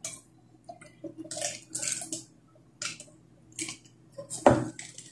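Drinks being sipped through straws from paper cups: several short, hissy slurps. A knock sounds about four and a half seconds in, and there are small dish and cutlery noises at the table.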